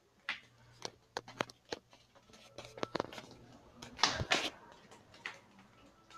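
Irregular light clicks and knocks, with a louder cluster of knocking and rustling about four seconds in.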